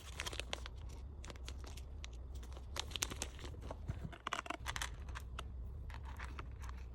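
Plastic packaging crinkling and rustling in the hands, with many scattered light clicks and crackles, as small accessories are handled and packed.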